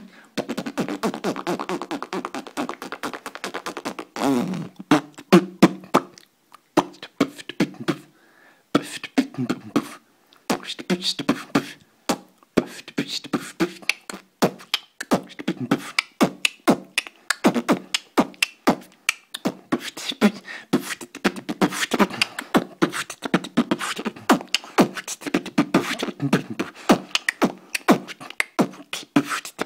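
A person beatboxing: fast percussive mouth clicks and pops in a steady stream, with a held hummed tone under them over the first few seconds and a couple of brief pauses.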